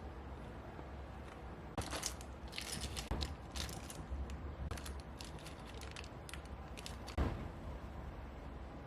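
Keychron V1 mechanical keyboard with brown switches being typed on: irregular key clacks, bunched in a quick run about two seconds in, then sparser, with one louder knock about seven seconds in.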